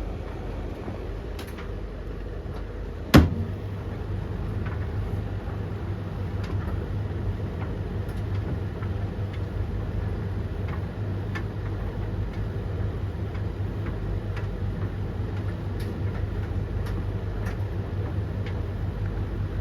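Three tumble dryers (Blomberg LTK310030W, Russell Hobbs RH3VTD800 and Hoover HLEC8TRGR-80) running together mid-cycle: a steady low hum of drums and motors with scattered light clicks. There is one loud knock about three seconds in.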